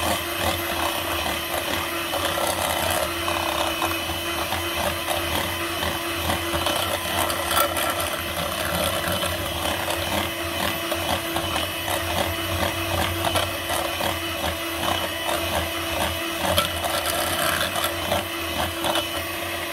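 Small white electric hand mixer running at one steady speed, its twin wire beaters whisking egg and butter cake batter in a glass bowl. A steady motor hum with frequent small clicks over it.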